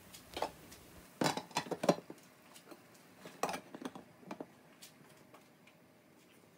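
Scattered clinks and knocks of kitchen utensils against cooking pots and containers, coming in small clusters about a second in and again around three and a half seconds in.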